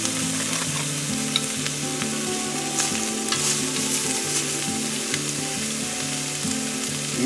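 Sliced pork and beef sizzling on a thick 4 mm steel griddle plate, a steady frying hiss. Metal tongs tap on the plate a few times as sausages are laid beside the meat.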